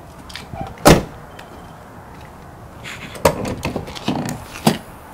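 2002 Mercury Mountaineer's rear side door shut with one loud slam about a second in, then a run of clicks and knocks near the end as the rear liftgate is unlatched and opened.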